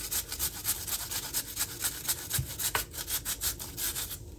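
Peeled potato being grated on the coarse side of a flat stainless-steel hand grater: a quick run of rasping strokes, about four or five a second, that stops just before the end.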